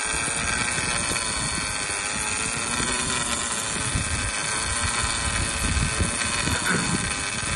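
Wind buffeting the microphone over the steady hum of a boat engine idling.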